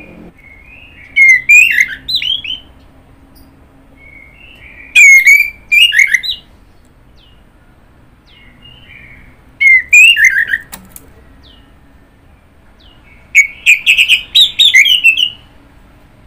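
Orange-headed thrush singing: four separate phrases of varied, rapid whistled notes, each lasting one to two seconds, with pauses of a few seconds between them.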